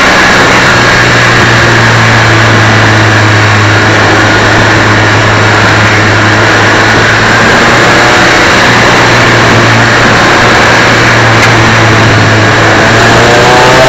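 Suzuki Swift Cup race car's engine running loud at a nearly steady pitch, with a dense rush of noise around it, as heard from a camera mounted on the car.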